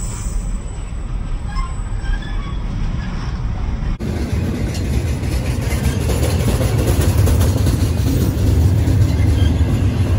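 Double-stack intermodal container train rolling past close by: a steady rumble of steel wheels on rail that grows louder about four seconds in.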